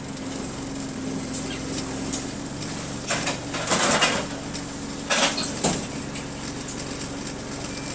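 Bus engine running steadily, heard from inside the cabin, with a few short clattering rattles about three and five seconds in.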